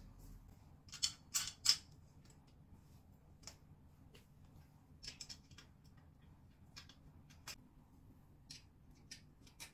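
Small metal clicks and scrapes as bolts and a hex key are handled against the metal frame of a white mesh rack during assembly. Three louder, sharp clicks come close together about a second in, followed by a scattering of lighter clicks and taps.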